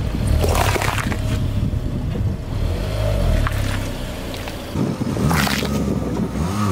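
A car tyre rolls over and crushes two bell peppers, a red and a green one, with a crunch about half a second in and another sharp crunching noise about five and a half seconds in. Under it runs the low rumble of the car rolling on asphalt.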